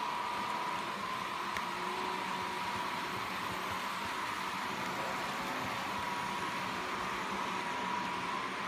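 Märklin model freight train, double-headed by two electric locomotives, running on metal track: a steady rolling noise from the wagons' wheels with a constant whine from the motors.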